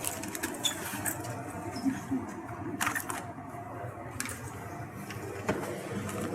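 Steady hum of a supermarket refrigerated display case, with a few sharp clicks and rattles of packaged goods being handled.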